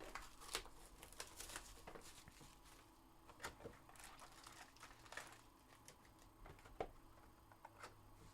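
Faint, scattered crinkling and tearing of card-box packaging and wrappers being opened, with a few light clicks and rustles.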